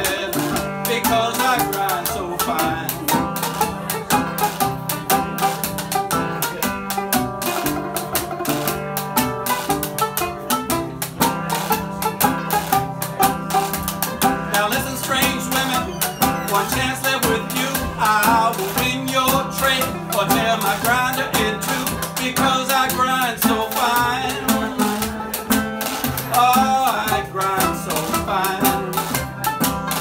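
Old-time jug-band music played live: a steel-bodied National resonator guitar and a banjo strummed together at a steady, bouncing beat.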